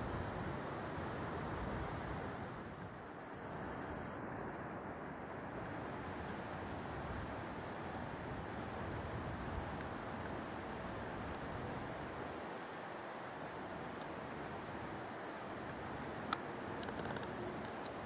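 High, thin call notes of a small songbird, short and repeated irregularly about once or twice a second, over a steady outdoor background hiss. A single sharp click comes near the end.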